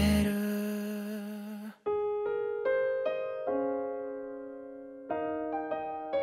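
A held, wavering note and the band under it die away. After a moment's silence, a solo piano plays slow, soft single notes and chords, each left to ring.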